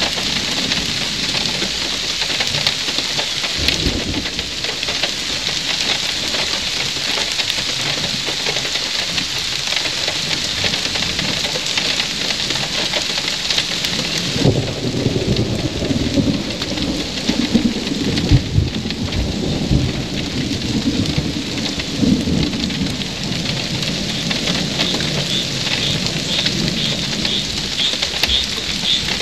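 Steady heavy rain, with a long roll of thunder rumbling in about halfway through and fading over several seconds.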